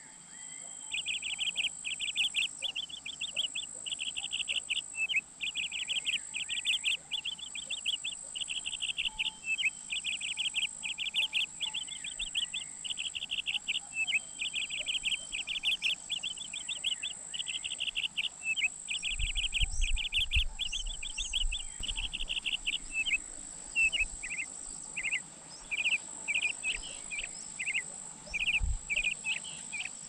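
American robin nestlings begging for food at the nest with rapid, high, repeated chirps in a near-continuous stream, thinning to scattered chirps over the last several seconds. A steady high-pitched tone runs underneath.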